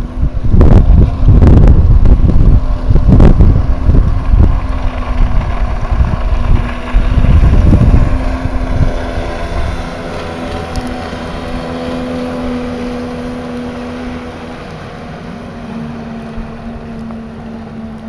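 Wind buffeting the microphone in loud gusts for roughly the first half. Then a jet ski's engine drones steadily as it passes towing a water-skier, its pitch dipping slightly later on.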